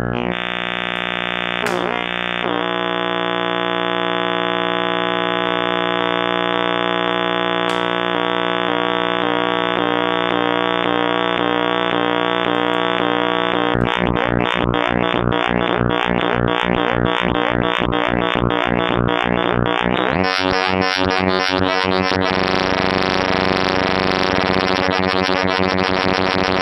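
Make Noise Spectraphon spectral oscillator in array oscillation mode, playing back a freshly created spectral array as a dense, steady harmonic drone. About 14 seconds in it starts pulsing rapidly, and about 20 seconds in the tone turns abruptly brighter and fuller.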